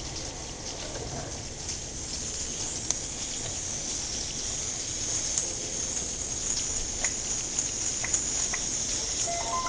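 Steady rain, a dense hiss with many small drips and ticks, growing a little louder. A few steady bell-like tones start ringing near the end.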